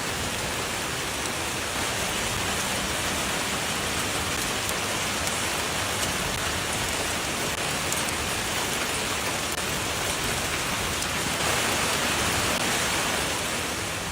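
Dense hail and rain hitting a car in a hailstorm, a steady, unbroken hiss of countless small impacts, a little heavier near the end.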